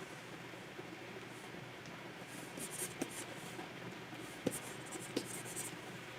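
Stylus nib scratching in short strokes across the surface of a Wacom pen display, over a steady low hiss. There are two clusters of quick strokes, and a few sharp taps at about three, four and a half, and five seconds in.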